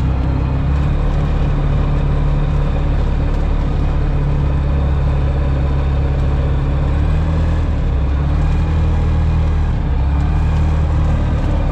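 Light aircraft's piston engine and propeller running at a steady cruise drone.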